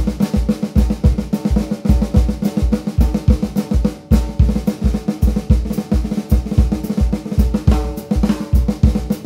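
Joyful Noise Luminary 14x6.5 metal snare drum played in rudiment patterns over a steady bass-drum ostinato on a drum kit. Fast, closely spaced snare strokes and rolls run against the repeated kick pattern, and the shells ring between hits.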